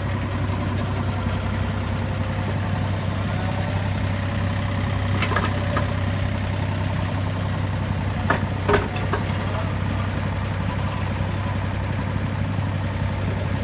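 Excavator's diesel engine running steadily at a low idle hum, with a few brief sharp sounds about five seconds in and again around eight and a half seconds.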